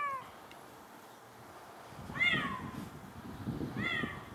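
A calico cat meowing three times: a short meow right at the start, then two more about two and four seconds in, each rising and falling in pitch.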